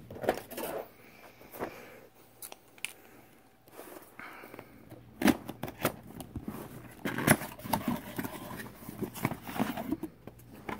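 Scissors cutting through fibre-reinforced packing tape on a small cardboard box: a run of irregular snips, clicks and scrapes. Near the end comes cardboard rustling as the box is opened.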